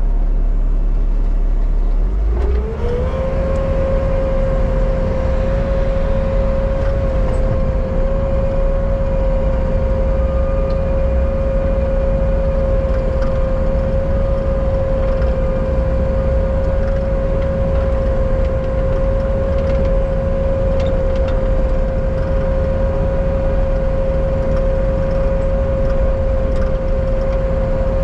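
Bobcat T77 compact track loader's diesel engine running, throttled up about two seconds in to a steady high-revving drone with a steady whine over a low rumble.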